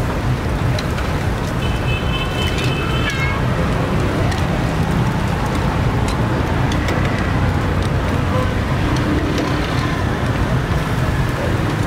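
Steady low rumble of street traffic around a charcoal grill stall, with a few light metallic clicks of tongs on the grill grate. A brief high tone sounds about two seconds in.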